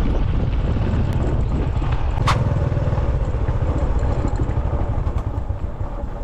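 Motorcycle engine running as it rides along a rough dirt track, a dense low rumble that grows a little quieter near the end. A single sharp click about two seconds in.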